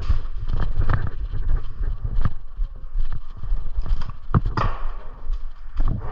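Hurried footsteps on a concrete floor, an irregular run of low thumps, with sharp knocks and rattles of carried gear.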